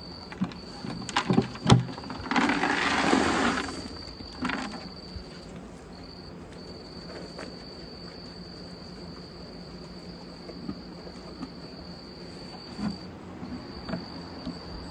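Crickets trilling on one steady high note, broken off briefly a couple of times. A few sharp knocks sound in the first two seconds, then a loud burst of rustling noise lasting about a second.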